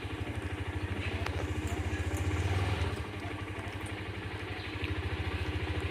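An engine idling steadily with a fast, even low throb, a little louder about two to three seconds in.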